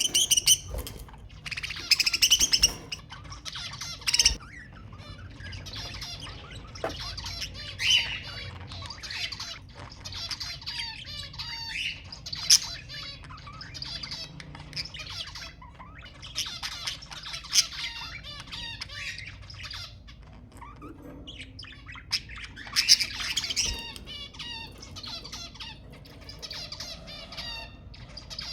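Budgerigars chattering and warbling continuously, with louder sharp squawks every few seconds.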